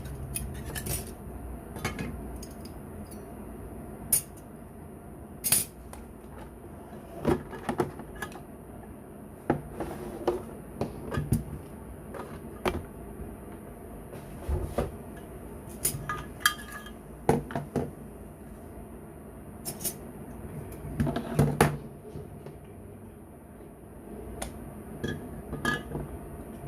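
Irregular clicks, knocks and clatters of a boxed heat gun and its packaging being handled and unpacked, with a short burst of several knocks near the end.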